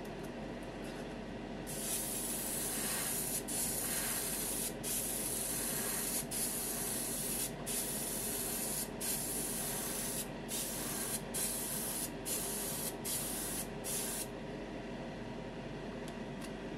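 Airbrush spraying a wet coat of 2K automotive clear, its hiss cut into passes by short breaks every second or so from about 2 to 14 seconds in. A steady low hum runs underneath.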